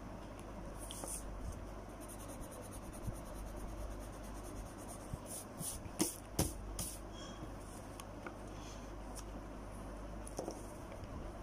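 Pencil scratching on paper as it draws and shades, over a low steady hum, with a few sharp clicks about six seconds in.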